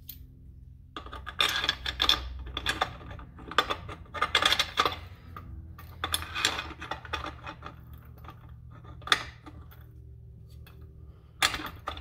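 Metal clinking and rattling as a steel beam trolley with its roller wheels and a long bolt are handled and fitted against steel angle-iron brackets, in several bunches of clinks with one sharp click about nine seconds in, over a steady low hum.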